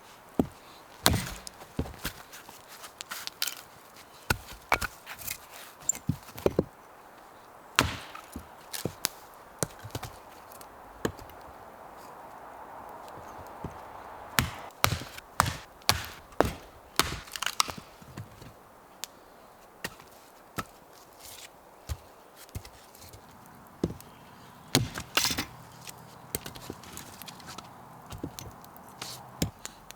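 Firewood being chopped: irregular sharp wooden knocks, sometimes several in quick succession.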